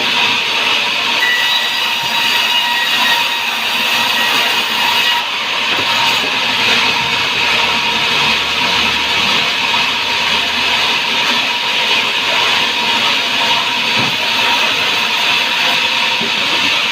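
Sawmill saw running steadily through hardwood: a continuous loud hiss with a thin steady whine underneath.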